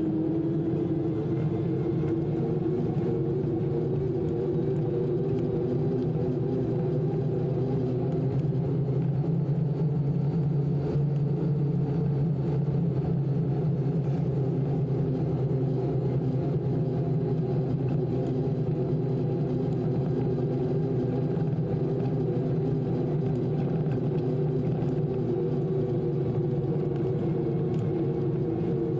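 E-bike with a TOSEVEN DM01 mid-drive motor riding on pavement on knobby fat tyres: a steady rolling rumble with a low, even hum.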